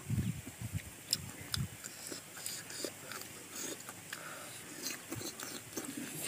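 Biting into and chewing raw star fruit: short, crisp crunching clicks scattered through, with a low rumbling in the first couple of seconds.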